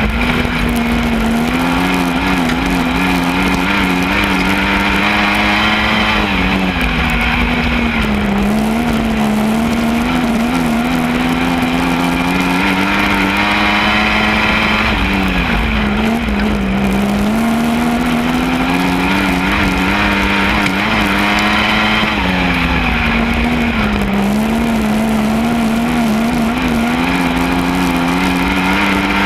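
Lightning Sprint mini sprint car engine lapping a speedway track. The note drops for each turn and climbs again down the straight, about every seven to eight seconds.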